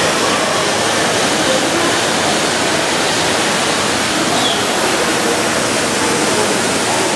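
Indoor waterfall, water falling steadily into a pool.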